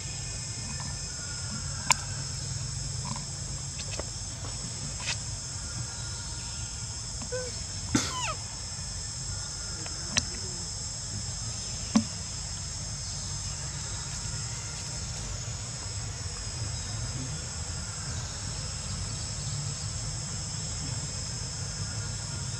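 Steady insect chorus: a high, even drone of several constant tones. A few sharp clicks stand out over it, around two, eight, ten and twelve seconds in.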